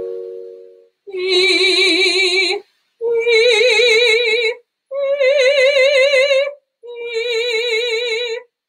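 A keyboard chord fades out, then a woman sings four held notes with vibrato as a vocal exercise demonstration. Each note lasts about a second and a half: they climb through three notes of a major arpeggio, and the fourth steps back down to the middle note.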